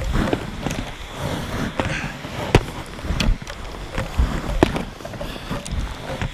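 Footsteps crunching through snow at an uneven pace, with irregular sharp knocks and low thumps on the microphone.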